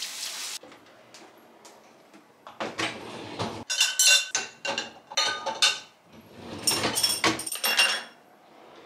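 A frying sizzle cuts off within the first second. Then dishes and cutlery clink and clatter in several bursts, with short ringing tones.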